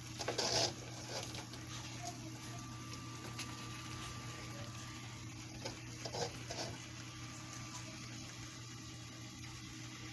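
Handfuls of fresh kangkong leaves dropped into a metal pot, rustling briefly right at the start and again about six seconds in, over a steady low hum.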